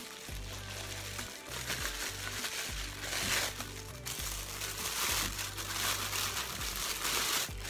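Plastic bubble wrap crinkling and rustling as it is handled and pulled open, loudest in two stretches from about three seconds in, over soft background music.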